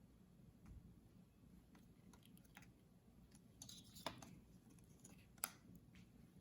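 Faint clicks and taps of small plastic parts being handled while a laptop fan's cable plug is fitted into its socket on the board, with two sharper clicks about four and five and a half seconds in.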